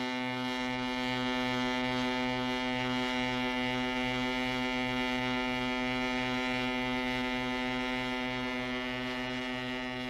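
Ship's horn of the ocean liner TSS Stefan Batory sounding one long, steady blast.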